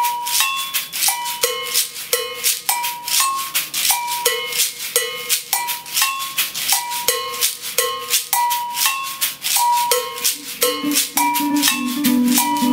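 A hand shaker shaken in a steady, quick rhythm, with a drumstick striking short, ringing pitched percussion notes in a repeating pattern as a groove intro. A bass guitar comes in near the end.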